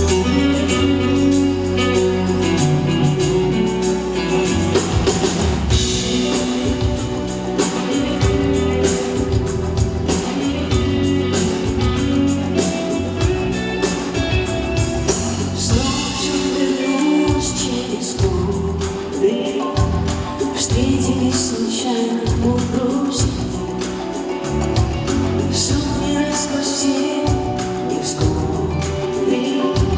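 Music: the introduction of a pop song performed live, with held chords over a steady beat, before the sung verse begins.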